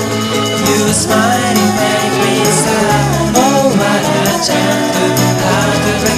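Twee-pop / neo-acoustic song: a lead vocal melody sung over bass and band accompaniment.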